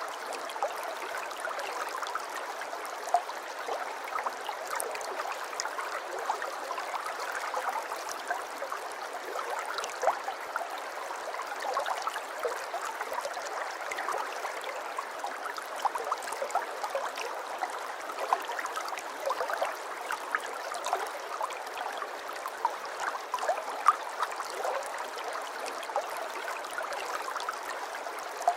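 River water flowing steadily over stones, a continuous rushing babble flecked with small splashes and gurgles, with no birds.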